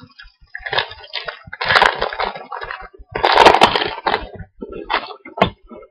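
Plastic trading-card pack wrapper being torn open and crinkled, in several uneven bursts of crackling, the loudest about halfway through.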